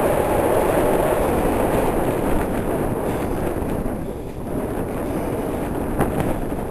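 Wind buffeting the camcorder's microphone: a low, rushing noise that eases a little about two-thirds of the way through.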